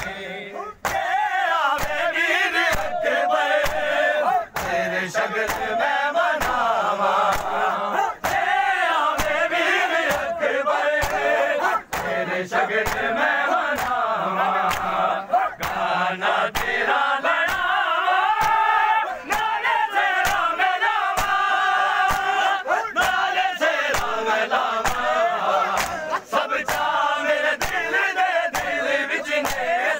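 Crowd of men chanting a noha together, with repeated sharp slaps of hands beating on bare chests (matam) sounding through the voices.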